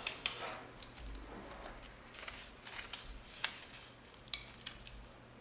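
Paper being folded by hand: soft rustles and sharp crinkling clicks as a sheet is creased, the crispest about three and a half seconds in.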